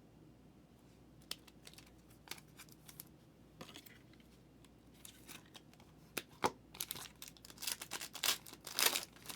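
Trading-card packaging being handled: paper or plastic rustling and crinkling with scattered small clicks and tearing sounds. The sounds are sparse at first and get busier and louder in the last few seconds.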